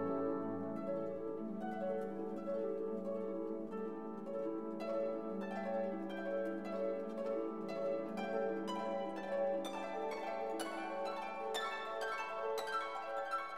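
Instrumental background music: a run of plucked, harp-like notes over held lower notes.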